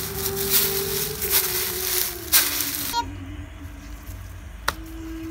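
Footsteps crunching through dry fallen leaves for about three seconds, then stopping, over a single held music note that slowly steps down in pitch. A single sharp click comes near the end.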